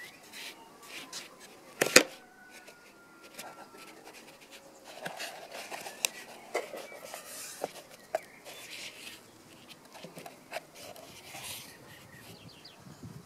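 Cardboard box being handled and folded by hand: scraping and rustling with scattered clicks, and one sharp knock about two seconds in.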